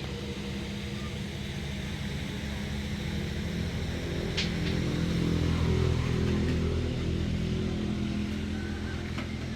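A motor vehicle's engine running with a steady low hum, growing louder toward the middle and easing off again, with one sharp click about four and a half seconds in.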